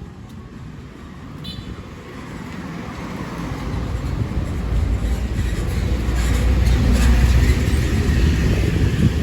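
Road traffic: engine and road rumble swelling as a vehicle draws near, loudest about seven seconds in.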